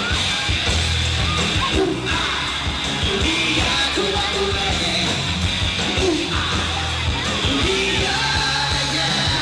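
Live rock band playing, with yelled vocals over drums, bass and guitars.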